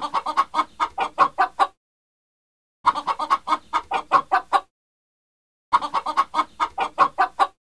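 Chicken clucking: three bursts of rapid clucks, each under two seconds long, with about a second of dead silence between them.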